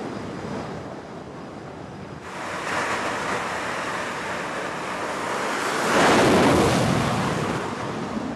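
F/A-18 Super Hornet jet engines at full power on a carrier's steam catapult, heard as a rushing noise. It begins over wind noise on the microphone, rises about two seconds in, is loudest around six seconds in as the jet is launched, then fades.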